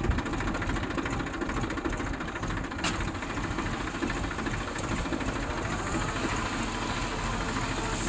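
Tractor's diesel engine running steadily, heard close up from on the tractor.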